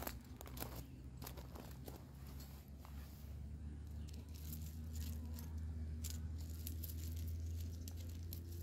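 Crunching steps on gravel, then scattered clicks and scrapes as a tent stake is pushed and worked into the gravel, over a steady low hum.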